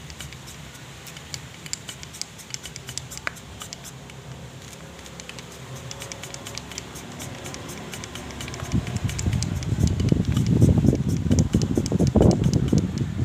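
Oversize piston being twisted and worked back and forth in a Yamaha Vega ZR cylinder bore with pliers, lapped in with grinding compound: gritty scraping with many small clicks, turning into louder, rougher rubbing in the last few seconds as the piston is worked harder.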